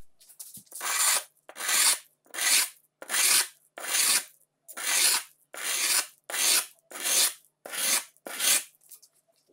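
A rusty steel Japanese kitchen-knife blade rubbed by hand back and forth on a sheet of sandpaper, about eleven rasping strokes a little over one a second. It is the sanding that takes the rust off the blade.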